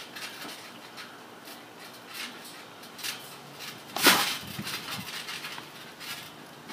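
A wrestler's body landing hard on a backyard trampoline mat: one loud thud about four seconds in, with fainter bumps and shuffles of bodies and feet on the mat around it.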